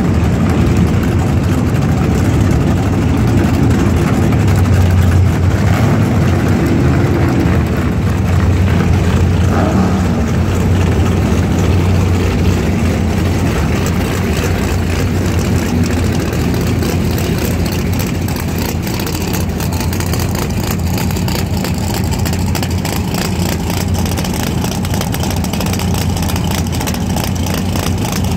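Holden HQ Monaro's 632 cubic-inch big-block Chevrolet V8 idling loudly and steadily at the drag strip start line, with no hard revving.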